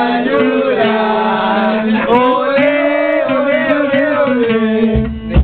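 A group of men chanting and singing together in loud, long held notes. A low thud comes near the end.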